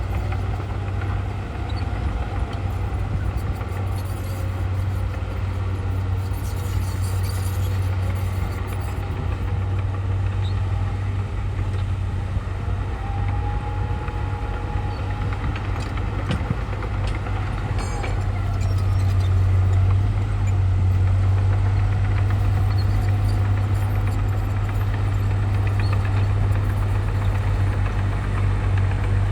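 Heavy diesel earthmoving machinery running steadily under load, getting louder about two-thirds of the way through. A brief high-pitched squeal sounds near the middle.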